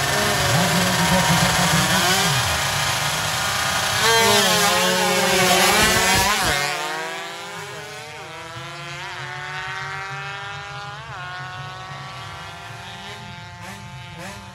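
Tuned 116cc underbone drag motorcycle at full throttle, its pitch dropping sharply as it passes about six seconds in. It then pulls away and fades, its revs climbing and falling back through several gear changes.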